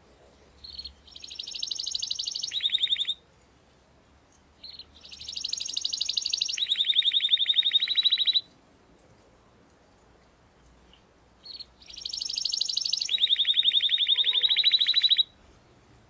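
Canary singing three phrases, each opening with a short note that swells into a fast rolling trill, then switches to a lower trill and stops abruptly.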